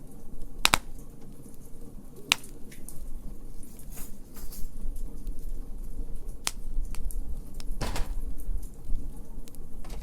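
Wood fire in a fire pit crackling: a scatter of small crackles with a few sharp, louder pops, over a low steady rumble.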